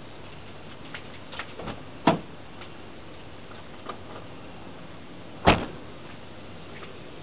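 Two sharp knocks about three and a half seconds apart, the second the louder, among scattered small clicks and taps of hand work on a car; no starter cranking.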